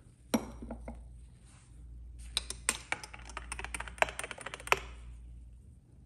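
A spoon stirring a latte in a double-walled glass mug: a quick run of light, sharp clinks against the glass lasting about two and a half seconds, after a single knock about a third of a second in.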